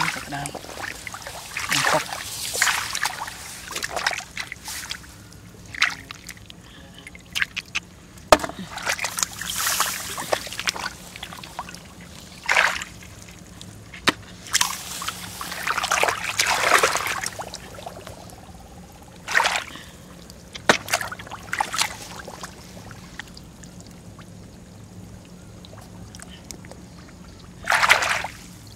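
Shallow rice-field water splashing and sloshing in irregular bursts a second or two apart, with a few sharp clicks in between.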